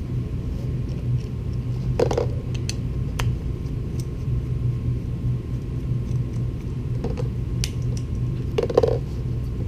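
A screwdriver backing screws out of a magnet's aluminum mounting bracket: small clicks and brief rustling handling noises about two seconds in and again near the end, over a steady low hum.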